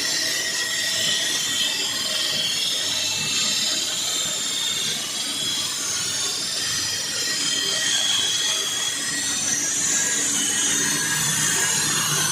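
Floor saw's diamond blade cutting into a concrete floor: a steady grinding noise with high whining tones that drift in pitch.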